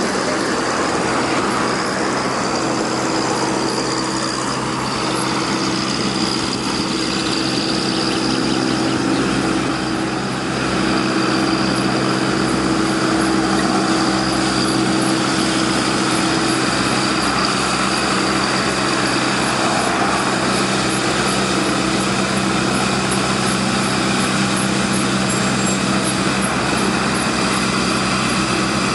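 A loud, steady mechanical hum with several constant low tones over a hiss, growing slightly louder about a third of the way in.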